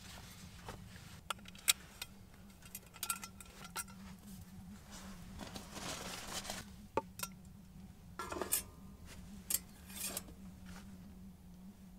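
Camp cooking gear being handled: a wooden cutting board and a stainless steel frying pan set down with scattered clicks, knocks and rustling, and the pan clanked onto the top of a steel wood stove near the end.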